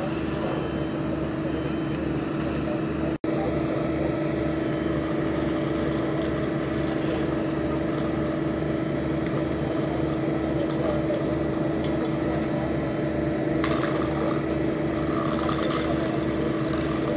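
A running engine's steady drone, with a constant hum and a low throb pulsing a little more than twice a second. It cuts out for an instant about three seconds in.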